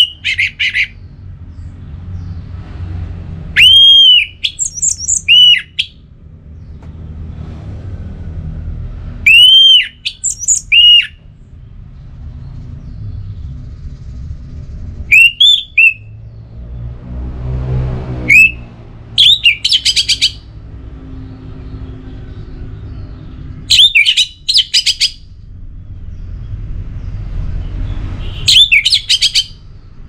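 Orange-headed thrush singing: loud whistled phrases, each note rising and then falling in an arch, coming in bursts every four or five seconds, some ending in a quick run of short notes.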